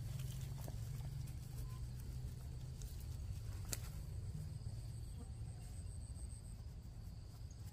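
Quiet outdoor ambience: a steady low rumble, a faint high steady whine, and a couple of light clicks.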